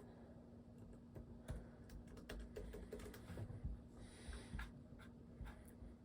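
Faint, irregular typing on a computer keyboard: scattered key clicks, with a low steady hum underneath.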